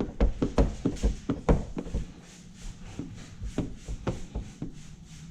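Paint protection film being worked down on a truck hood with a hand squeegee. In the first two seconds there is a quick run of knocks and rubs, then rubbing strokes in a steady rhythm.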